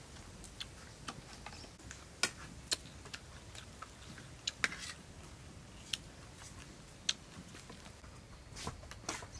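Eating sounds: a metal spoon clicking against a steel plate and the mouth sounds of eating braised pork leg, heard as irregular short sharp clicks, the loudest about two, four and a half, six and seven seconds in.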